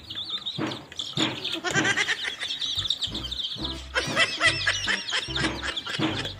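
A flock of baby chicks peeping: many rapid, high cheeps overlapping. Background music comes in about three seconds in with low bass notes.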